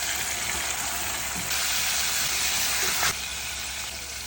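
Food sizzling in a hot pan: a steady hiss that swells for about a second and a half and then drops back suddenly.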